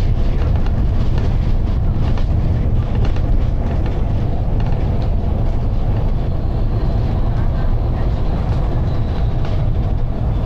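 Volvo B9TL double-decker bus running, heard inside the upper deck through a phone microphone: a steady, loud low rumble of engine and drivetrain with no break.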